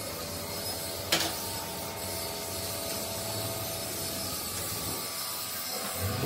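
Steady workshop machinery noise: a machine running with a hiss, and a single sharp knock about a second in.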